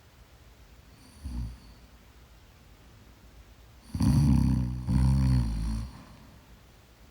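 A sleeper snoring: a short, faint snore about a second in, then a loud snore in two parts about four seconds in, lasting about two seconds.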